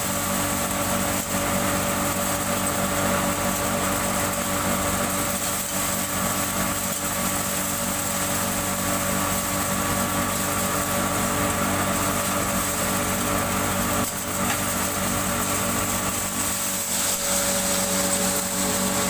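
Electric hammer-mill pulverizer running steadily, a constant whirring hum with steady whining tones over a dense rush of grinding noise.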